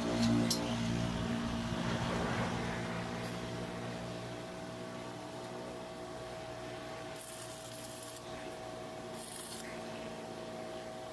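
Steady machine hum with one held tone over a lower drone that eases after the first few seconds, and two short bursts of high hiss about seven and nine seconds in, from arc-welding work on a metal gate.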